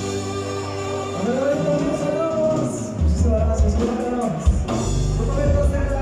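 Live dance band playing with a singer's voice over a steady bass line.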